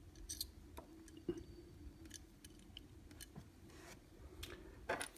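Faint small clicks and scrapes from handling a 1/64-scale die-cast model car as its wheels are taken off, with a sharper click about five seconds in.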